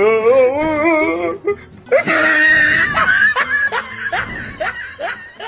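Comedy sound effects laid over the footage: a warbling, wavering tone, then a hissy burst and a run of laughter in short, evenly spaced ha-ha pulses.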